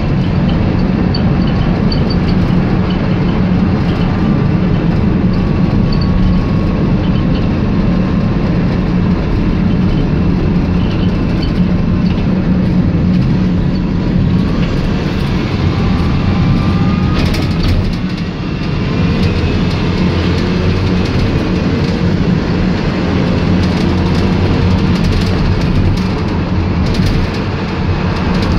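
Engine and road noise of a VW Transporter T5 minibus on the move, a steady low drone with light rattles, dipping briefly about two-thirds of the way through.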